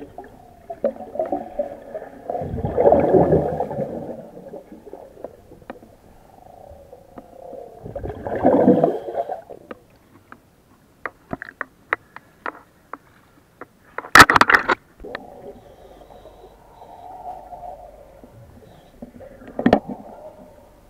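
Underwater sound of a diver in an IDA-59M breathing apparatus: two swelling bursts of gas bubbling out, about three and eight seconds in, with scattered clicks throughout. A short loud burst about fourteen seconds in is the loudest sound.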